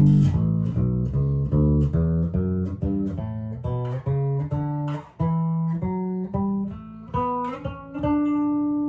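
Schecter Studio-5 five-string electric bass played on its bridge pickup alone: a quick run of single notes, about three or four a second, climbing in pitch. Near the end it lands on one note left to ring.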